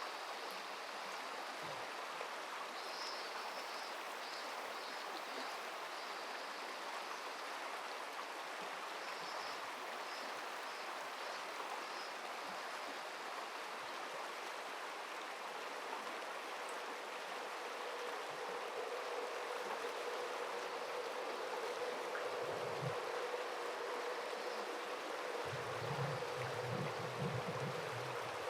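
Steady rushing of flowing river water. Faint high chirps come through a few seconds in and again around ten seconds in, and a faint steady hum joins about two-thirds of the way through.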